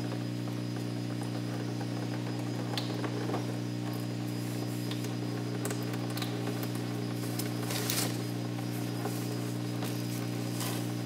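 Steady low electrical hum, with faint clicks and rustles of gloved hands working at the oil pan drain plug under the car, and a brief louder scraping noise about eight seconds in.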